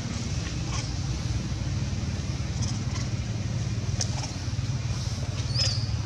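A steady low rumble, with a short high-pitched bird chirp about five and a half seconds in.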